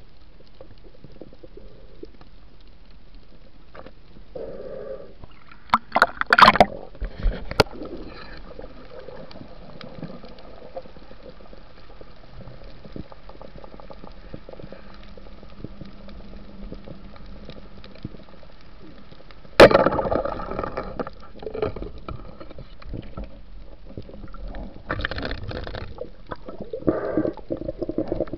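Underwater sound recorded by a diver's camera: a low steady water hiss, broken by a few sharp knocks about six to seven seconds in. Two-thirds of the way through comes one loud sharp clack followed by a couple of seconds of rushing water noise, with more rushes of water noise near the end.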